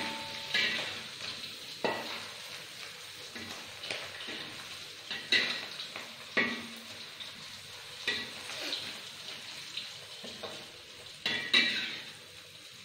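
Salted fish pieces frying in hot oil in a wok with a steady sizzle, while a spatula scrapes and clanks against the wok every second or two as they are stirred.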